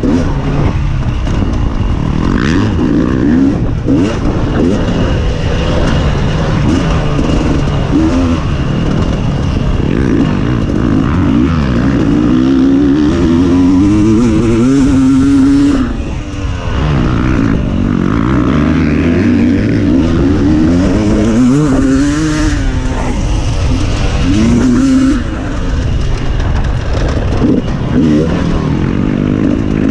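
Off-road racing motorcycle engine revving up and down over and over, its pitch rising and falling with the throttle, over a steady rush of noise. Twice, about halfway and again near the end, the engine note drops away briefly before picking up again.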